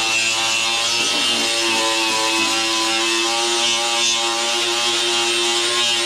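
Grinder fitted with a wire brush running steadily, scouring old flaked paint off a tractor bonnet: a steady motor whine under a bright, hissing scrape, its pitch wavering a little as the brush bites.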